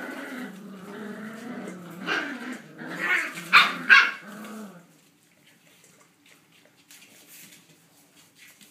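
Australian Shepherd puppies and an adult growling in play during a tug-of-war over a rope toy, with two sharp barks about three and a half seconds in. The growling stops after about five seconds.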